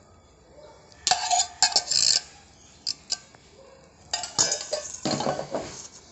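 Metal spoon stirring fruit salad in a stainless steel bowl, clinking and scraping against the bowl in two bouts, about a second in and again from about four seconds.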